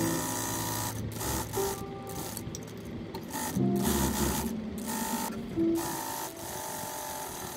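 Sewing machine stitching a straight seam along the edge of a piece of fabric. It runs in short spurts with brief pauses as the fabric is guided through, and faint background music plays underneath.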